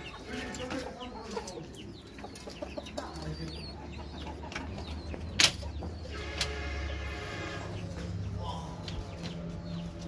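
Chickens clucking around the coops, with some wing flapping and a longer drawn-out call about six seconds in. A single sharp click, the loudest sound, comes about five and a half seconds in.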